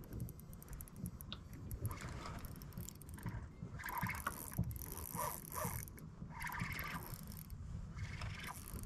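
Fishing reel being cranked to fight a hooked fish: irregular runs of mechanical clicking from the reel, with knocks and scrapes of gear handled in the kayak.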